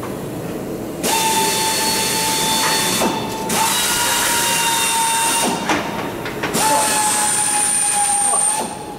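A power drill running in three bursts of about two seconds each, with a steady whine and hiss: holes being drilled in the aluminium airframe structure.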